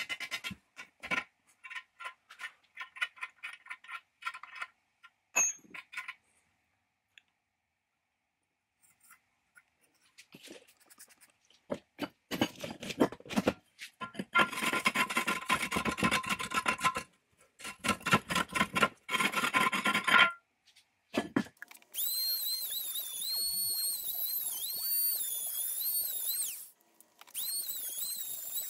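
A steel scraper rasping rust and scale out of the pipe socket of a 1920s Thompson cast-iron forge bowl in quick, uneven strokes, the cast iron ringing with each stroke. About 22 seconds in, a small handheld rotary tool starts with a high whine that dips in pitch as its grinding stone bears on the cast lettering, cutting out briefly near the end.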